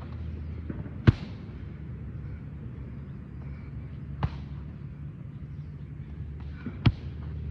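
Strikes landing on Thai pads strapped to a tree: three sharp smacks a few seconds apart, the first and last the loudest, over a steady low background rumble.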